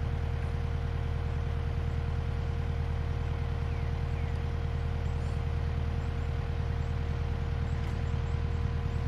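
Engine idling nearby: a steady low drone with an even hum that does not change.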